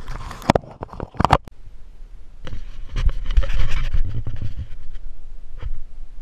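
Fingers rubbing and tapping on the action camera's housing, a quick run of sharp scrapes and knocks in the first second and a half. From about two and a half seconds in comes a steady rumble of wind buffeting the camera's microphone.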